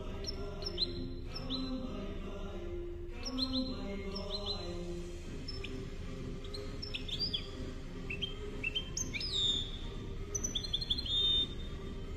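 A goldfinch–canary hybrid (mule) singing in its cage: sharp, quick falling chirps and short trills. The song gets busier in the second half and ends with a held high note near the end. A low, faint music- or chant-like sound lies underneath in the first few seconds.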